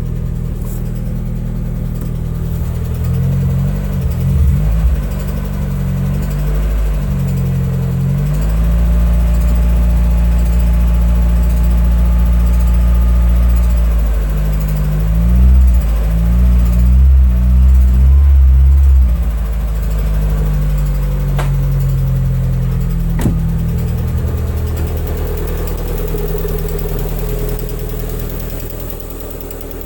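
Lada Kalina 1.4 16-valve four-cylinder engine running, mostly at idle, with the revs rising and wavering through the middle and settling again, and a couple of sharp clicks later on. The engine has a strange knock since a morning cold start whose cause the owner cannot pin down.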